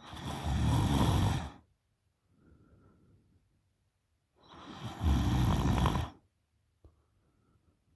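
A woman snoring with her mouth open: two loud snoring breaths, each about a second and a half long and about four seconds apart, with a much softer breath in between.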